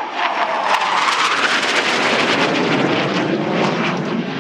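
A-4 Skyhawk jet flying past overhead: its turbojet whine drops in pitch during the first second as it passes. Loud jet noise with a crackle follows and eases slowly as it moves away.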